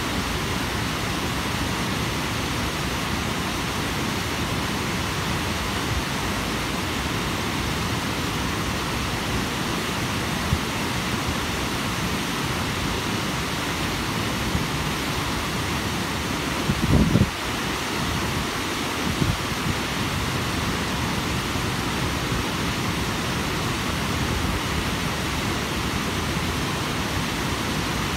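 Water pouring steadily over a curved concrete dam spillway into the pool below, a constant rushing noise. A brief low thump comes about two-thirds of the way through.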